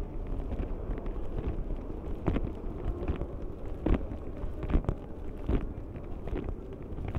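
Footsteps walking on a hard stone floor, about one step every 0.8 seconds, clearer from about two seconds in. Under them runs a steady low rumble of station ambience and handheld microphone noise.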